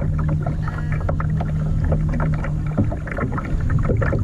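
A small boat's motor running with a steady low hum, over a low rumble, with scattered light knocks and clicks.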